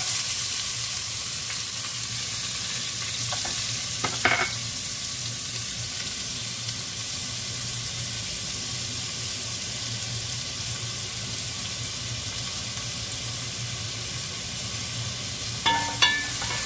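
Chopped onion sizzling steadily in hot oil in a pot, the sizzle starting abruptly as the onion goes in. A wooden spoon clicks against the pot a few times about four seconds in and again near the end.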